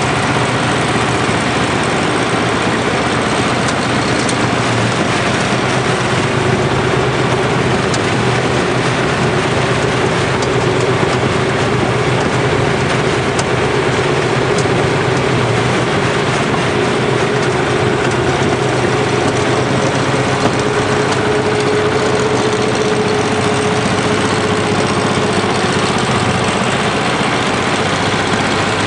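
Penta TMR feed mixer running and unloading feed through its hydraulic discharge conveyor: a loud, steady machine drone with a steady hum through the middle.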